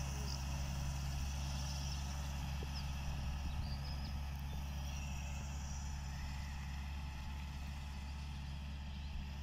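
Farm tractor engine running steadily as it pulls a mounted fertilizer spreader across the field, heard from a distance and fading slightly as it moves away.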